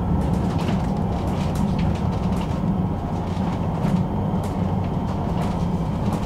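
Tram running along the street, heard from inside the passenger cabin: a steady low rumble of the car rolling on its rails, with a few light clicks scattered through it.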